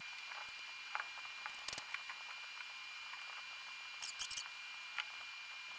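Small robot's drive motors and wheels working over painted paper: a faint steady high whine with a few short clicks and squeaks, a small cluster of them about four seconds in.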